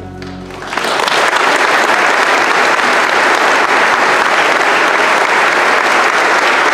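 The final held chord of the music dies away, and under a second in an audience breaks into loud, steady applause.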